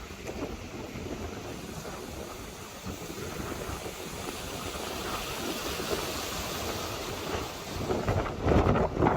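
Steady hiss of heavy rain and wind in a storm, with louder low gusts buffeting the microphone near the end.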